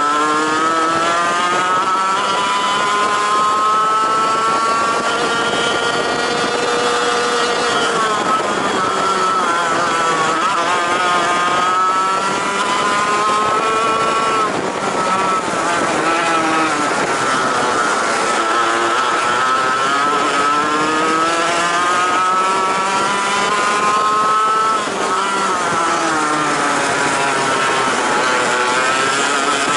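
Racing kart engine at full throttle, its note climbing steadily on each straight and dropping sharply as it slows for a corner, about three times.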